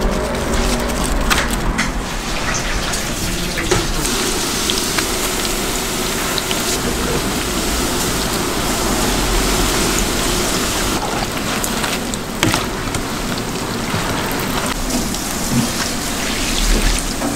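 Snacks deep-frying in hot oil: a steady sizzling hiss with scattered crackles.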